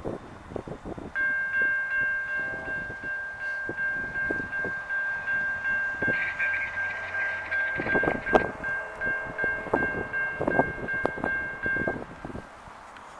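Norfolk Southern freight locomotive's multi-chime air horn blowing one long, steady chord of several notes for about ten seconds, starting about a second in and cutting off near the end. Wind gusts buffet the microphone throughout.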